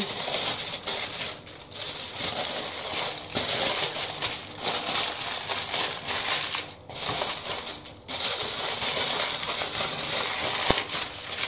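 Aluminium foil crinkling and crackling as hands fold and scrunch it tightly around a fish, with a few brief pauses between folds.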